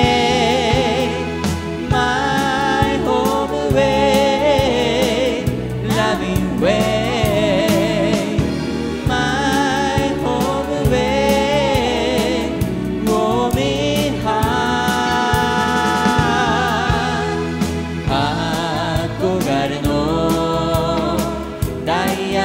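Background song: a male-and-female vocal duo singing a refrain in harmony over a backing track with a steady beat.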